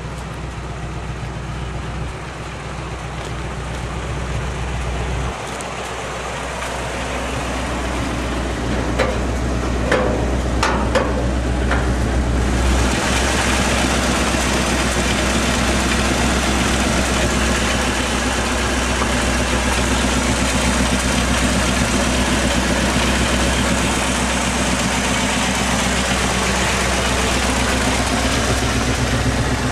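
1955 Chevrolet 6100 tow truck's engine idling steadily, heard from beside the truck at first, then louder and noisier from about twelve seconds in, up close at the open engine bay. A few light clicks come shortly before the rise.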